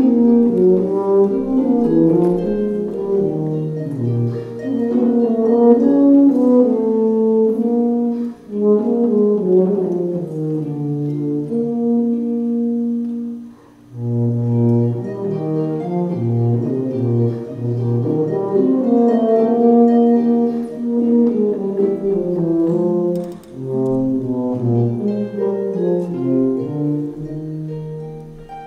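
Tuba playing a slow, sustained melody with concert harp accompaniment, the line breaking briefly twice for breaths.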